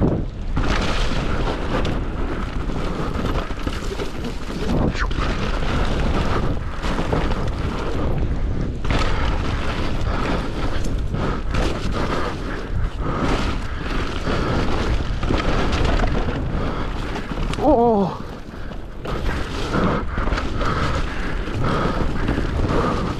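Steady wind rumble on the microphone mixed with rolling noise from an electric mountain bike descending a slippery, muddy and icy trail, with a short wavering squeal about 18 seconds in.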